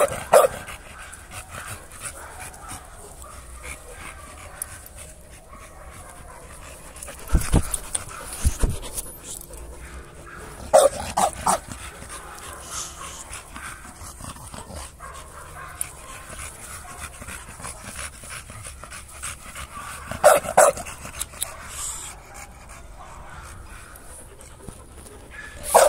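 Dog panting steadily and rapidly, close by, with a few short louder noises breaking in now and then.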